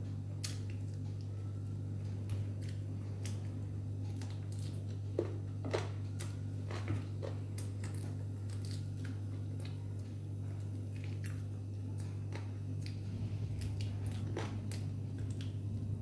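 A person eating: scattered short chewing and mouth clicks, a few louder ones around five to seven seconds in, over a steady low hum.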